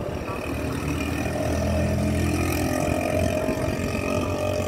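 A motor vehicle's engine running close by in street traffic, growing louder about a second in and holding steady through the middle.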